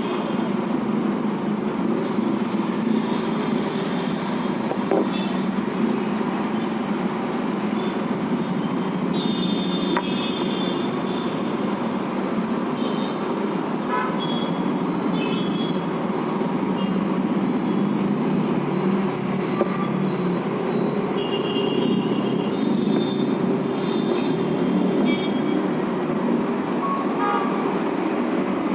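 Steady low background rumble with short, high-pitched toots scattered through it, heaviest about a third of the way in and again past the middle.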